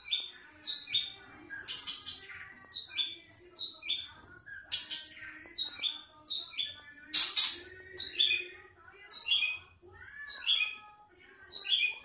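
Caged long-tailed shrike (cendet) calling over and over, about twice a second, each short call starting high and stepping down in pitch: the bird is calling for a mate.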